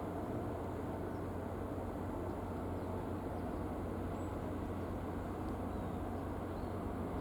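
Steady low rumble and hum of the car ferry Tokiwa Maru's engines as she gets under way out of port.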